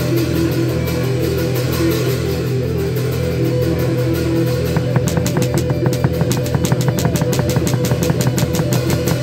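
Live band playing, with sustained low notes. A fast, even drum beat comes in about halfway through.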